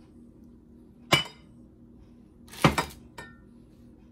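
A glass measuring cup clinking against a glass mixing bowl: two sharp clinks about a second and a half apart, the second ringing a little longer, then a faint tick.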